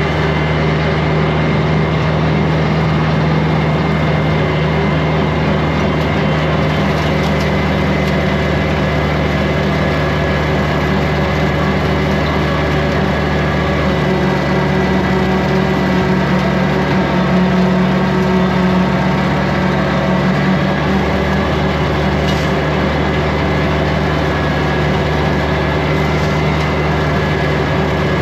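Kubota compact tractor's diesel engine running steadily at working speed while it drives a rotary brush-cutter mower through the PTO. The engine and blade noise hold even throughout, with a slight change in the engine's pitch about midway.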